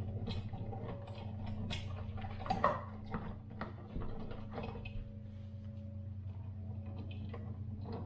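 Scattered light clicks and taps of hands working on switch wiring with small tools, over a steady low hum.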